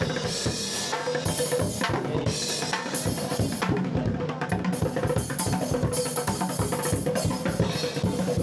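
Fast, steady drumming with bass drum and snare hits, played without a break.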